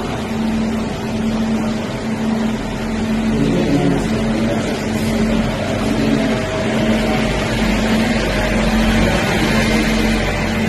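Jewelry laser welder's water-cooling pump and fans running steadily during the machine's start-up self-check, while it fills with cooling water. It is a constant hum with a steady low tone that dips briefly now and then.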